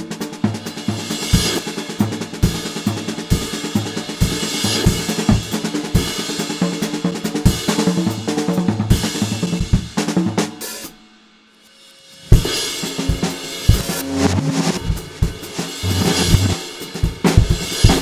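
Acoustic drum kit playing a busy groove on kick, snare, hi-hat and cymbals. About eleven seconds in the playing stops for a second and a half, then comes back in with a loud hit.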